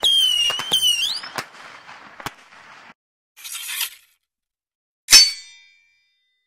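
Stock intro sound effects. First come two short high whistling tones that slide upward at their ends, with a few sharp clicks and a fading crackle. Then there is a brief hiss, and about five seconds in a single sharp metallic clang that rings briefly, a vault-door opening effect.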